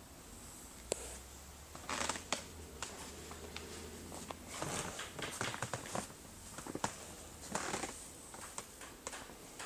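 Handling noise from a handheld camera: irregular clicks and rustles over a faint low hum.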